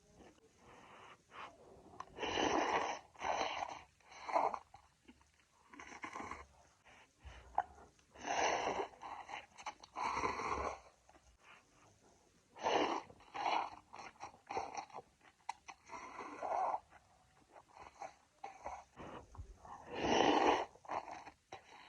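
A person slurping and chewing noodles: about a dozen breathy slurps, each up to a second long, at irregular intervals with quieter chewing between.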